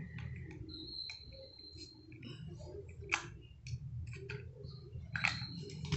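Light plastic clicks and ticks from fingers and a small screwdriver working the screw-fastened battery cover of a toy RC rock-crawler car, with two sharper clicks about three and five seconds in. A steady low hum runs underneath.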